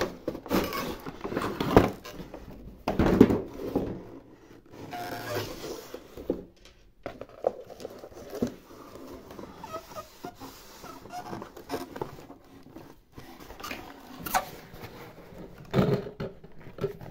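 Hands handling a cardboard toy box and the plastic doll playset pieces inside it: irregular rustling, scraping, taps and clicks, with a few louder knocks of handling.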